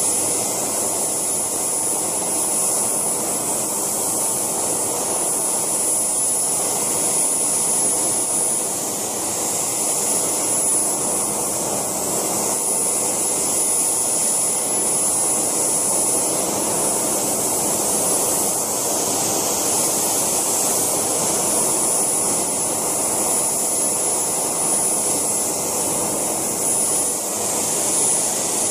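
JetCat PHT2 model helicopter turbine running steadily with a high, constant whine, together with the rotor noise of the scale Alouette II helicopter hovering low.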